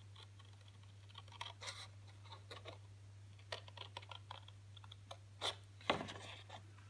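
Scissors snipping into black paper in a series of small, quiet clicks, with a couple of louder clicks near the end, over a steady low hum.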